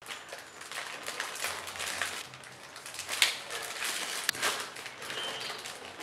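Plastic bread bag crinkling and crackling as it is handled and opened, with two sharper snaps about three and four seconds in.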